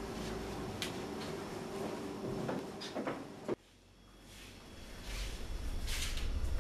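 A door being handled and shut, with a few knocks and clicks, then a sudden drop to quiet room tone. Near the end come soft, evenly spaced footsteps on a tiled floor.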